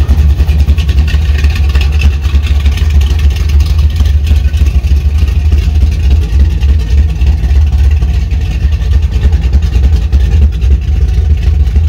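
1985 Chevrolet C10's ZZ4 350 small-block V8 idling steadily, a loud low rumble through long-tube headers and Spintech ProStreet 6000 mufflers that exit just ahead of the rear tires.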